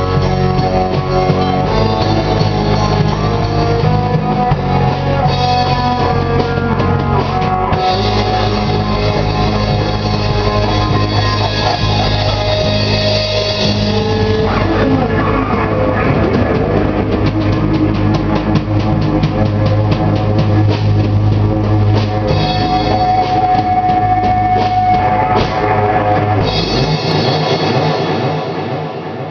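A rock band playing live: electric guitar and a drum kit. Near the end the low end cuts out and the last chord dies away.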